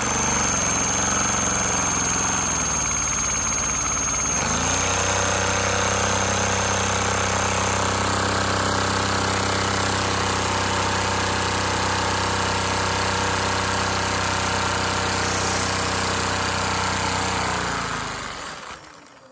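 LEGO V-twin vacuum engine running fast, a steady mechanical hum whose pitch rises about four seconds in and then holds, before the engine winds down and the sound fades near the end.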